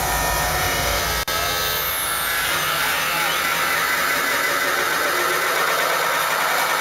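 Loud, buzzing electronic noise effects from a hardstyle set's intro over a big PA, with no beat. Falling whooshes come about two seconds in, and a rising sweep builds near the end.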